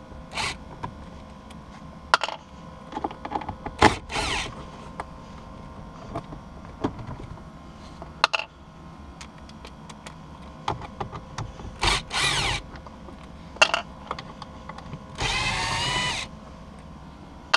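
Cordless drill/driver with a T20 Torx bit backing out screws under the shifter trim, in several short bursts, the longest and loudest near the end. Clicks and small knocks of the tool and screws come between the bursts.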